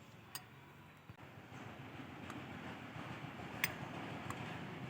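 Flour and cornflour being tipped into a bowl of chicken strips: a soft rustling hiss and a few light, sharp clicks of utensils against the bowl.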